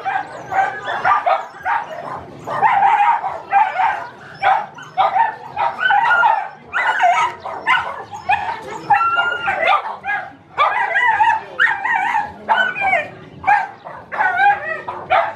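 Several dogs scuffling, barking and yelping in quick, overlapping short calls, with some whining mixed in and almost no pause between calls.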